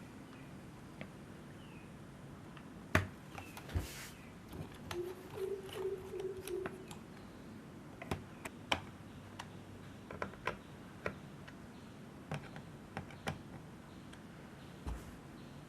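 Laptop parts being handled during an SSD install: about a dozen scattered sharp clicks and taps of plastic and small metal parts, the loudest about three seconds in, with a brief low tone around five to seven seconds in.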